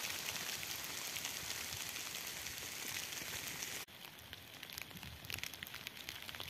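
Hail falling as a dense, steady hiss; after a cut about four seconds in it turns quieter and becomes many small ticks of pellets striking tent fabric.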